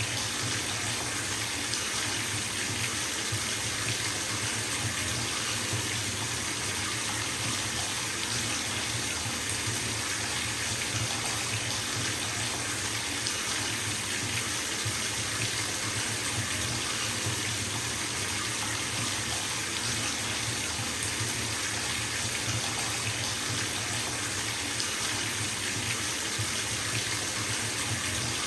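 Water running from a bathtub tap into the tub, a steady, even splashing rush with no change.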